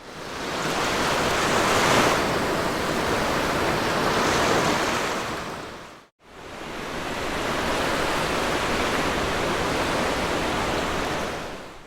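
Sea waves washing onto a beach: a steady rush of surf, swelling a little about two seconds in and again near four and a half seconds. It fades out and drops to silence for a moment about six seconds in, then fades back in and fades out again near the end.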